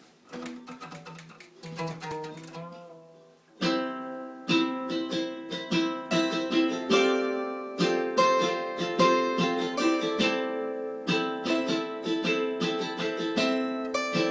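A plucked string instrument playing a melody in picked notes: soft and sparse at first, then from about three and a half seconds in a louder, fuller stream of notes at a steady pace.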